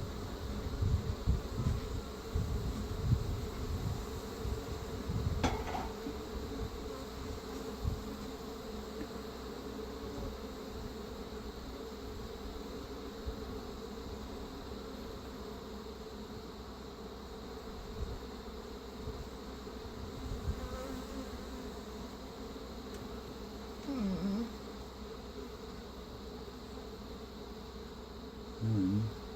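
A swarm of honey bees buzzing steadily in a mass hum around an opened hive. Low rumbles and a few knocks come in the first several seconds, and two brief louder sounds come near the end.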